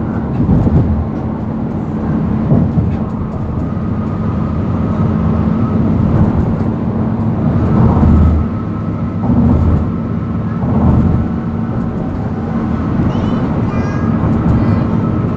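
Steady road and engine noise heard from inside a car cruising at highway speed, a low rumble with a steady hum running under it. Near the end come a few brief high chirps.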